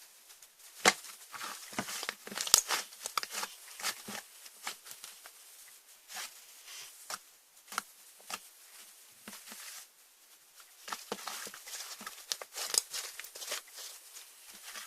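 Slime being squished and poked by hand, making irregular wet clicks, pops and crackles, with a quieter stretch just past the middle.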